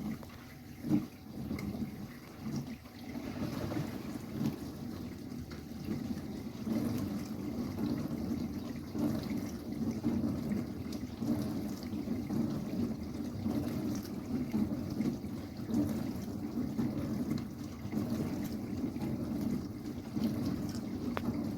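Whirlpool dishwasher running with water sloshing and circulating inside, a steady low churning with a few brief knocks in the first few seconds.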